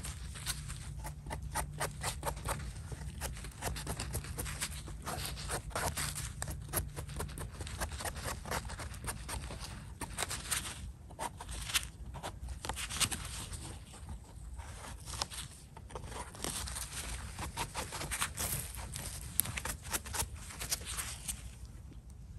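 A small knife blade scraping and paring the thick stem of a freshly picked bolete mushroom: many short, quick scraping strokes with brief pauses.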